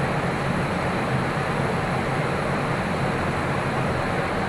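Steady cockpit noise of a Boeing 777-200LR in flight: an even rush of airflow and ventilation with a low hum underneath.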